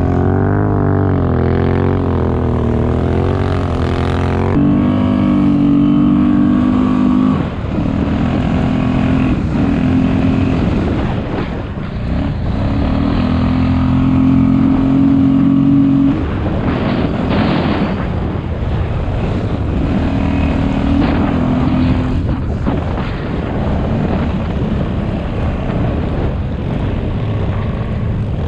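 ATV engine running, its pitch drifting up and down and shifting abruptly several times as the revs change.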